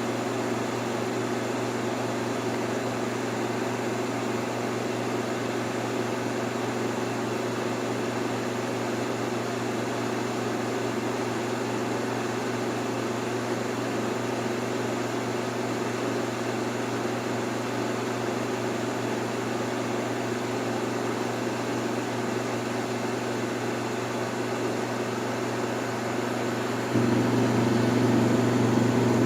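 1958 Carrier 4,500 BTU window air conditioner running on cooling: a steady low hum from the compressor and fan motor under an even rush of air from the blower. It gets louder a little before the end.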